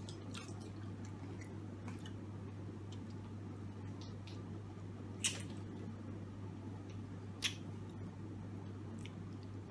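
Wet kissing sounds: faint lip smacks and squelches of two people kissing open-mouthed, with two sharper smacks about five and seven and a half seconds in, over a steady low hum.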